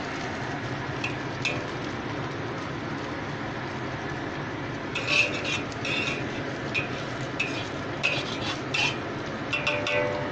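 Instant noodles frying in oil in a wok, a steady sizzle. From about halfway through, a spatula scrapes and taps against the wok in short clusters.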